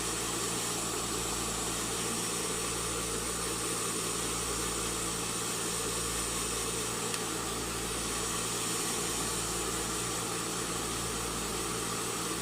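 NV-899 Nova hair dryer running steadily on its lowest speed setting, a constant rush of air over a motor hum, blowing not that strong.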